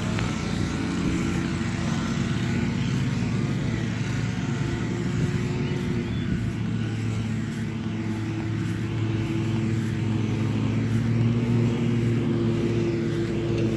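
DJI Mavic quadcopter's propellers buzzing steadily at close range, a continuous hum with a steady pitch.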